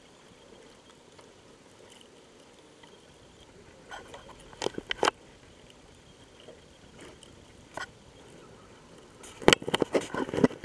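Quiet background with scattered sharp taps and knocks, a few about four to five seconds in and a loud cluster near the end, heard muffled through a waterproof camera case.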